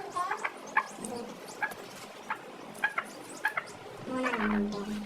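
Domestic chickens calling: many short clucks and high peeps, with one longer drawn-out call about four seconds in.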